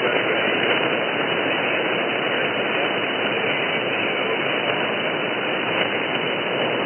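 Shortwave receiver hiss and static from a single-sideband radio tuned to 6940 kHz upper sideband: a steady rushing noise in a narrow, telephone-like band, with no clear voice or music on the signal.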